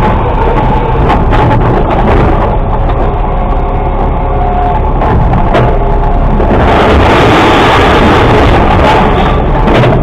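Mack LR600 garbage truck running with its automated side-loader arm tipping carts into the split hopper. Trash clatters into the hopper, with sharp knocks about a second in and again past five seconds, and a louder rush of falling cardboard and bags from about six and a half seconds.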